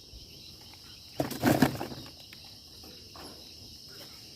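Crickets chirring steadily in a high continuous drone, with a brief louder handling noise about a second and a half in.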